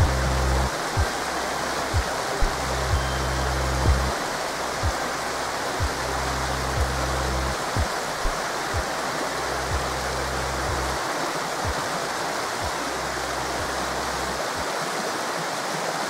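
Steady rushing of a flowing forest river, with soft music underneath: sustained deep bass notes that shift every few seconds and a faint low pulse about once a second.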